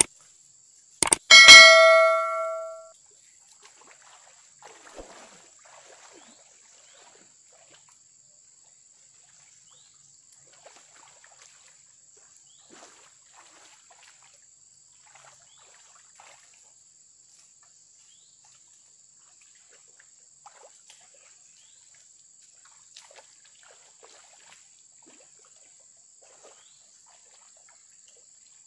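A metallic clang about a second in that rings on with several tones and fades over about a second and a half. After it comes a small, slow-flowing ditch with faint trickles and occasional small splashes, under a steady faint high whine.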